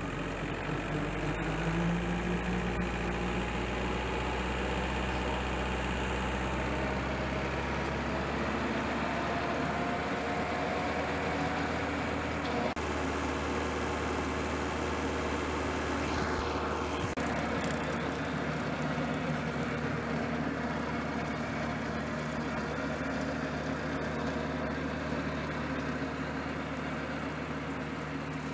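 Tractor engine driving a rotary grass slasher through the PTO. Its revs climb slowly over the first ten seconds or so to the 540 PTO speed, then hold steady with the slasher running.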